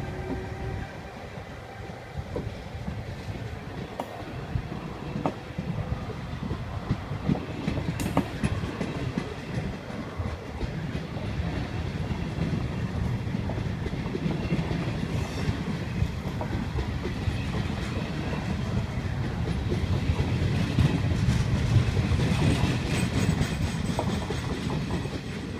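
Locomotive-hauled passenger train passing close by: a steady rumble of coaches rolling past, with clicks of wheels over rail joints, swelling louder in the second half.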